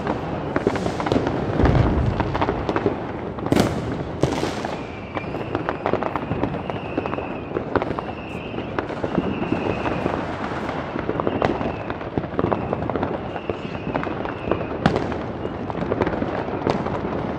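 Fireworks and firecrackers going off all around, a dense, irregular crackle of many bangs, some close and sharp, others further off. Through the middle stretch a wavering high whistle comes and goes.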